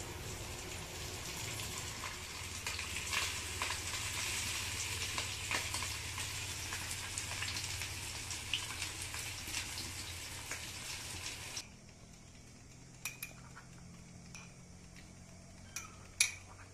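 Coated pomfret pieces sizzling and crackling in hot oil in a cast-iron pan. The sizzle cuts off suddenly about 12 s in, followed by a few light clinks of a steel plate.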